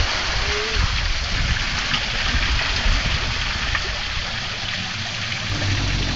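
Waterfall rushing: a steady, loud hiss of falling water. Near the end a low hum joins in.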